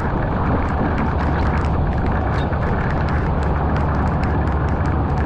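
Heavy rain falling on a flooded street: a steady loud rush with a deep rumble, and many sharp ticks of drops landing close by.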